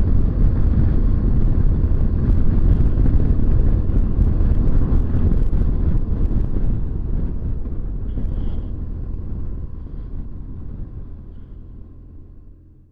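Onboard sound of a BMW R1200GS motorcycle riding at road speed: the flat-twin engine's steady low rumble mixed with wind rush. The sound fades out steadily over the last several seconds.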